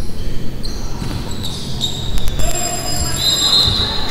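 Basketball game in an echoing gym: a ball bouncing on the hardwood floor, a couple of short high squeaks, and players' voices over the hall noise.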